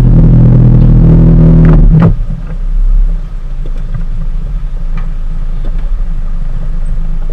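Boat engine running with a steady rumble. A loud, low-pitched drone with several overtones stops abruptly about two seconds in, leaving the lower rumble.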